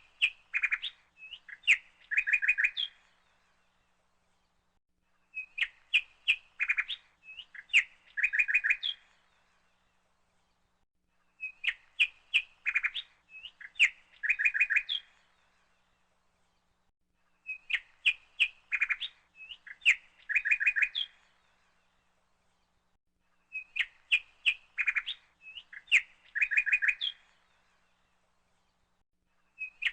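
Bird song: the same short chirping phrase, about three seconds long, repeating every six seconds with silence between.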